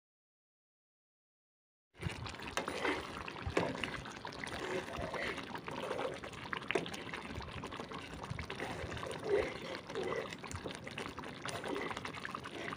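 Thick ginger gravy simmering in a steel pan, bubbling and popping softly, with a spoon stirring through it; it starts suddenly about two seconds in after silence.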